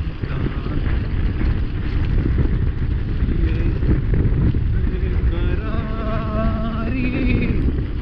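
Heavy wind buffeting on an action camera's microphone from a mountain bike descending at about 37 km/h, a steady low rumble with tyre noise on the asphalt. Around five to seven seconds in, a brief wavering, pitched, voice-like sound rises over it.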